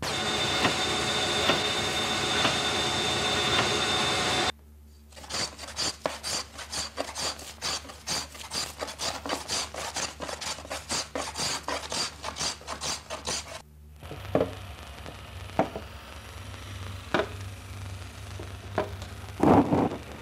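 A steady machine whir that cuts off sharply about four seconds in. Then a hand tool shaving the wooden plate of a viola da gamba in quick, even strokes, about three a second. Then slower, scattered taps and scrapes on the wood, with a louder knock near the end.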